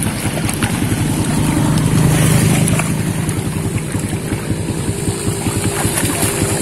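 A small engine running steadily with a rapid, even firing beat, swelling louder for a moment about two seconds in.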